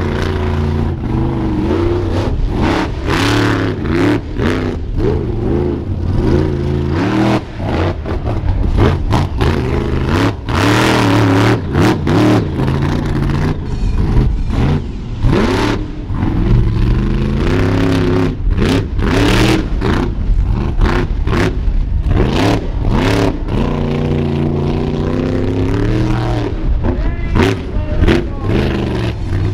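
Monster truck engine revving hard and repeatedly rising and falling in pitch as the truck turns in circles on dirt. Sharp cracks and clatter are scattered all through it.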